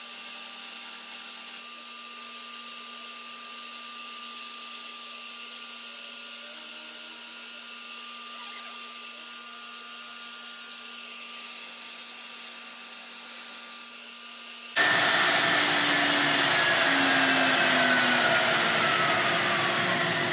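Wood-milling machine running: a steady hum with constant tones, then about 15 seconds in a sudden, much louder rushing noise, like dust extraction or the router spindle under load, with a whine that slowly falls in pitch.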